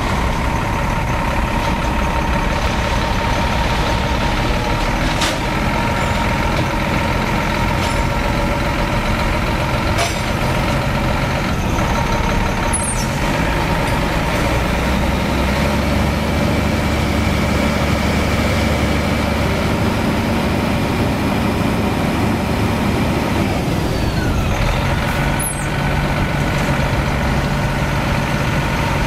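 Heavy tank-transporter trucks moving slowly at close range, their diesel engines running in a steady loud drone, with a few short hisses about ten, thirteen and twenty-five seconds in.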